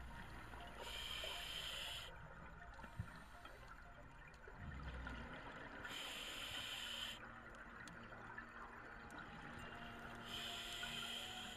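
Underwater scuba breathing through a regulator: three hissing inhalations, each about a second long and roughly four to five seconds apart, with a low bubbling rumble of exhaled air between them.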